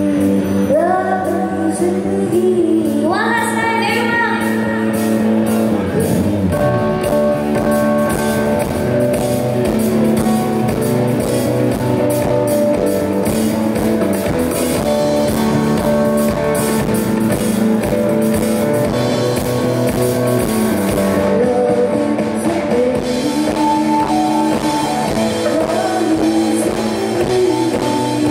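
Live band music: a woman singing over electric and acoustic guitars, keyboard and a drum kit, the drums coming in fully about six seconds in.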